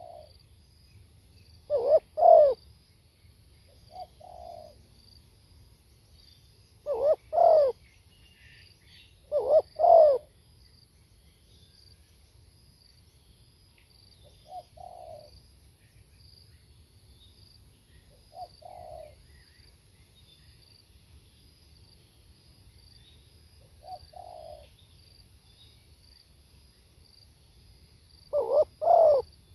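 Spotted dove (tekukur) cooing in short phrases of two or three coos, loud near the start, around seven and ten seconds in and near the end, with softer coos in between. A faint steady high insect trill runs underneath.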